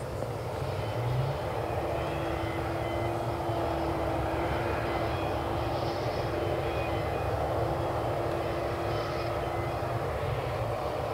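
Steady mechanical drone of a parked jet airliner and its ground equipment: a continuous low rumble with a held hum that comes in about two seconds in and drops out near the end.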